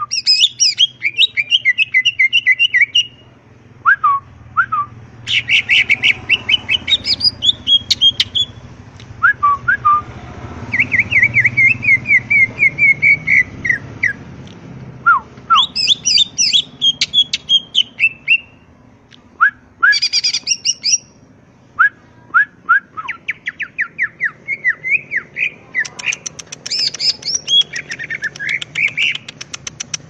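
Male cucak ijo (greater green leafbird) singing hard: a string of varied phrases made of fast rattling trills, chattering runs and short whistles that slide down in pitch, with brief pauses between phrases.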